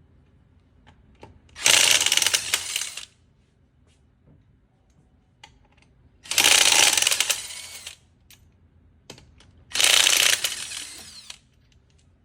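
Impact wrench loosening wheel lug nuts, run in three bursts of about a second and a half each, with small metallic clicks between them.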